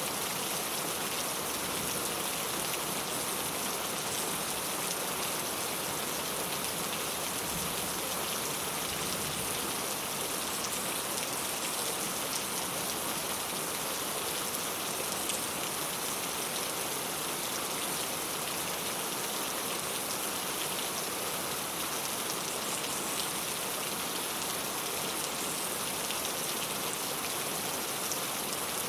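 Steady rain falling on a clay tile roof: an even hiss, dotted with many small drop ticks, that holds steady throughout.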